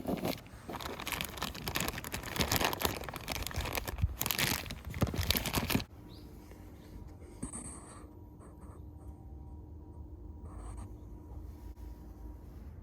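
Hands working on a car door: about six seconds of scraping and rustling that stops abruptly, then a few small clicks over a faint steady hum.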